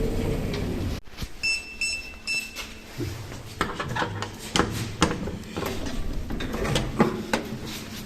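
A lift car's low running rumble that cuts off about a second in, then three short high electronic beeps about half a second apart, then scattered clicks and knocks.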